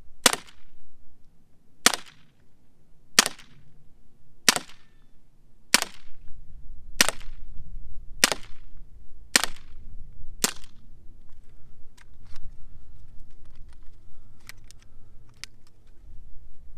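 Gamo CO2 air pistol fired nine times in steady succession, a sharp pop a little over a second apart. After that come only a few faint clicks.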